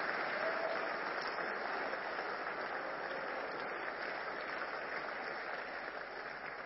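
Congregation applauding, slowly dying away.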